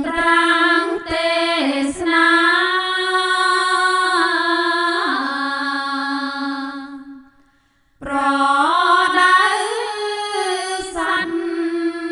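Theravada Buddhist sutra chanting: a single voice sings long, drawn-out held notes in two phrases, with a short breath pause about seven seconds in.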